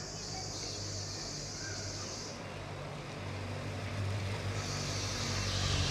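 A motor vehicle engine running steadily with a low hum, joined by two stretches of high hiss, the second louder near the end.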